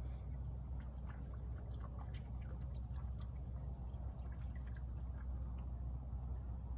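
Creek water at the surface: faint small ticks and tiny splashes scattered through, over a steady low rumble and a steady high hiss.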